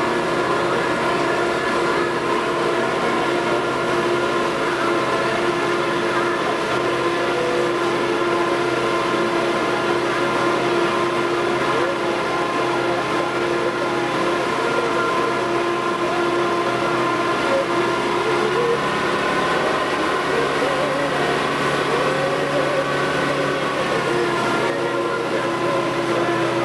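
Motorboat engine running steadily, a continuous drone that holds its pitch, with a faint wavering tone that comes and goes in the second half.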